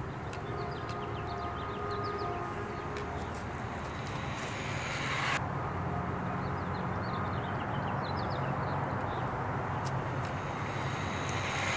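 Steady outdoor street ambience: a low, even rumble and hiss, with small birds chirping in short bursts in two spells. A short loud burst of noise near the end.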